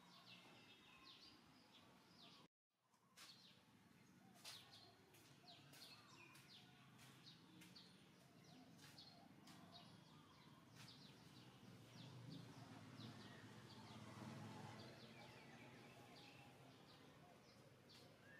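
Faint background birdsong: many short, quick chirps scattered throughout, over a low hum, with a brief gap in the sound about two and a half seconds in.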